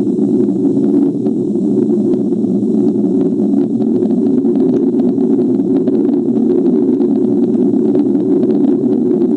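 Schumann resonance signal, Earth's electromagnetic resonance shifted up into the audible range, played back as a loud, steady, dense low hum with faint scattered clicks.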